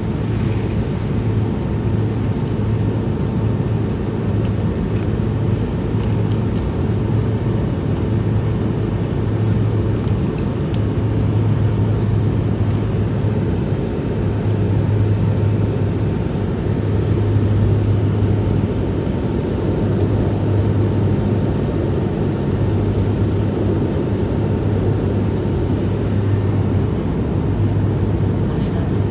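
Airliner cabin noise in flight: a steady, fairly loud drone of engines and rushing air, with a strong low hum.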